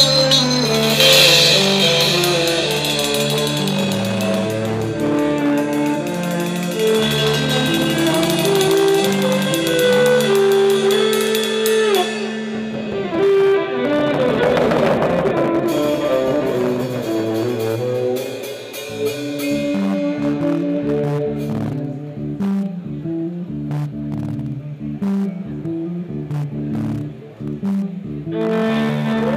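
Live rock band: electric guitar, bass and drum kit, heard from the drummer's seat through a helmet camera's rough-sounding microphone. About 12 s in, the cymbal wash drops out and the playing turns sparser and choppier, led by guitar and bass. A loud cymbal-heavy full-band hit comes back in near the end.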